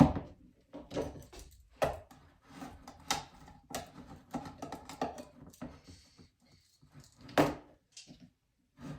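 Irregular clicks, taps and knocks of small hard objects being handled and set down on a hard surface, with one louder knock about seven and a half seconds in.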